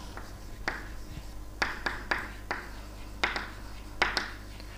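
Chalk writing on a chalkboard: an irregular string of short taps and scrapes as letters are written, over a low steady hum.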